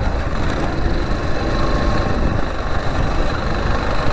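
Motorcycle running steadily while riding along, with a continuous rumble of engine and road noise.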